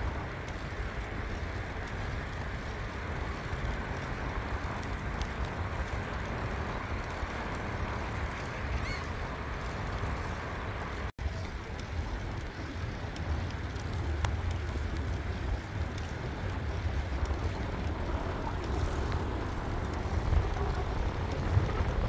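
Wind buffeting the microphone and tyre rumble of a bicycle riding along a paved path, a steady noisy rush with gusty low rumbling. The sound cuts out for an instant about halfway through.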